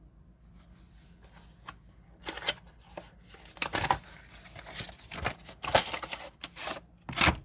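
Knife box and packaging being handled and opened: irregular rustling, scraping and light clicks that begin about two seconds in, with a louder burst near the end.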